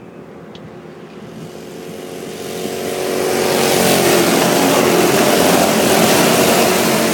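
Racing go-kart engines at speed, growing louder as a kart closes in and passes near, loudest from about four to six seconds in, then starting to fade.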